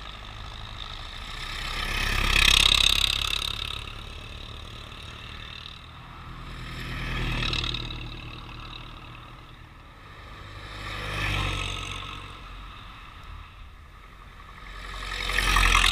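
Ford Model T cars driving past one after another, each engine growing loud as it nears and fading as it goes; four pass by, the loudest about two and a half seconds in.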